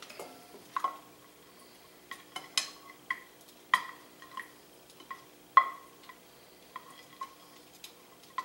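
Metal kitchen tongs clinking against a bowl as chicken wings are turned in garlic hot sauce. The clinks are sharp, irregular and ring briefly, the loudest about two-thirds of the way in.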